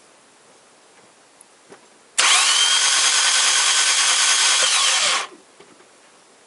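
Starter motor cranking a Toyota Corolla VVT-i engine with its spark plugs removed, so the engine spins freely with no compression. It makes a whir that starts abruptly about two seconds in, rises briefly in pitch, holds for about three seconds, then falls and cuts off. This is a priming crank to bring oil pressure up in a newly installed engine.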